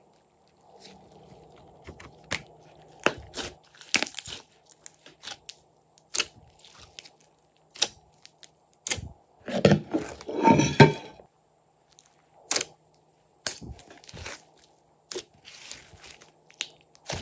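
Hands squeezing and kneading glossy slime, making irregular wet clicks and pops as air pockets burst. About nine seconds in there is a louder, dense run of squelches lasting around two seconds.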